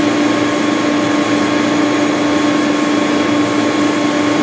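Bitzer screw compressor running: a steady, loud machine noise with a constant humming tone.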